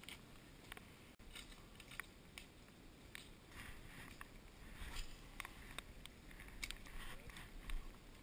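Faint, irregular clicks and light taps over a low background rumble.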